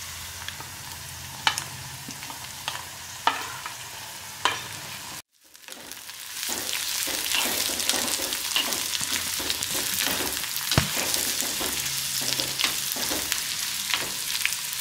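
Shallots, green chillies and then chopped bitter gourd sizzling in coconut oil in a clay pot, with a wooden spatula clicking against the pot as it is stirred. The sizzle cuts out briefly about five seconds in, then comes back louder with more frequent clicks.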